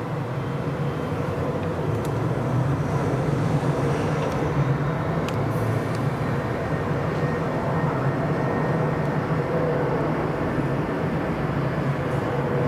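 Boeing 767-300 freighter's twin jet engines on final approach, a steady rushing noise with a low drone, growing louder over the first three seconds and then holding.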